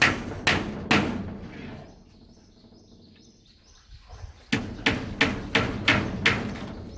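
A hand tool striking wood in a steady run of sharp blows, about two to three a second. The blows stop for about two seconds, when faint bird chirps can be heard, then start again.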